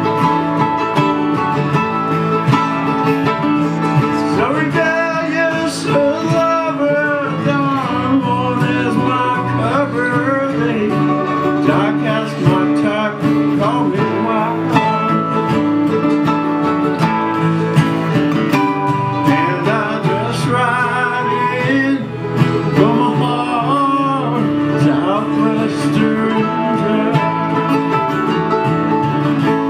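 Live acoustic string band, two acoustic guitars and a mandolin, playing a steady instrumental passage of a country-folk song, a melodic lead line running over the strummed chords.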